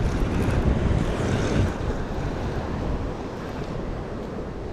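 Wind buffeting the microphone over ocean surf washing against rocks, a little louder in the first couple of seconds.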